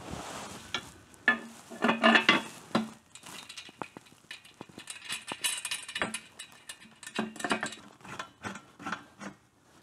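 Light metallic clinks and clicks as a steel motorcycle exhaust pipe is handled and fitted to the engine, with small taps and scrapes of hand tools on fasteners.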